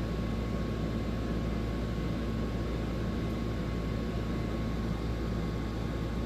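Steady low mechanical hum with an even hiss and a faint steady tone, unchanging throughout: continuous background machine noise.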